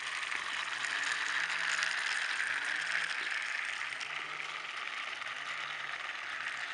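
Motorized Railway Snowy Hiro toy train running on its track: a steady whirr of the small motor and plastic gears, swelling a little in the first couple of seconds.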